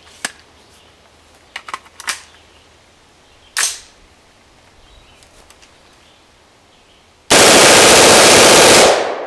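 A few sharp metallic clicks and a snap as a suppressed select-fire AR-type carbine is handled and readied, then one long full-auto burst of about a second and a half, trailing off in echo.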